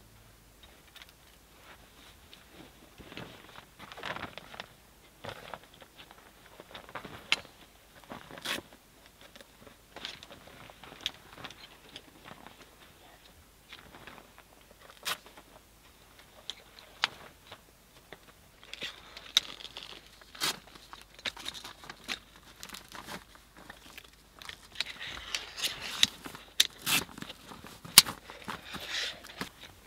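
Folding camp chairs being set up: scattered clicks and knocks of their metal frames opening, mixed with the rustle and crinkle of padded fabric covers being pulled over them. The handling gets busier near the end.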